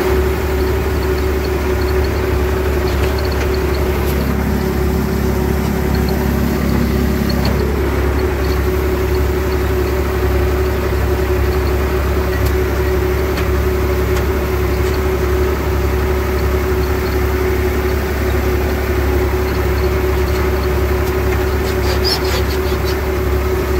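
IMT 539 tractor's three-cylinder diesel engine running steadily, heard from inside the cab.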